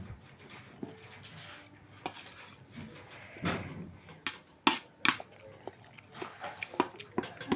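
Parrot's beak clicking and tapping against a dish as it picks up and eats rice, in scattered sharp clicks, a few of them loud.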